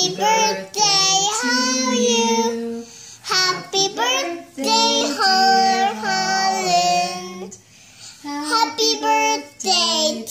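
A child's voice singing a melody in phrases of long held notes, with short breaks between phrases.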